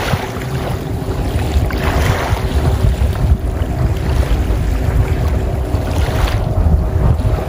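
Wind buffeting the microphone in a fluctuating low rumble, with the hiss of small waves washing in shallow water swelling and fading several times.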